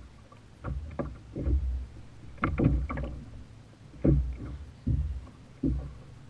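Water slapping against the plastic hull of a Hobie fishing kayak in choppy sea, a run of irregular thuds a fraction of a second to about a second apart.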